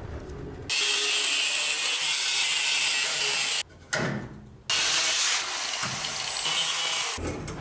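Angle grinder cutting and grinding leaf-spring steel, with a steady high-pitched grinding hiss. It comes in two long passes with a short break a little over halfway through.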